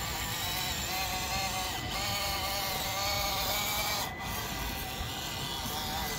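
Whine of a Traxxas TRX4M 1/18 RC crawler's small electric motor and gearbox driving through mud, its pitch wavering up and down with the throttle.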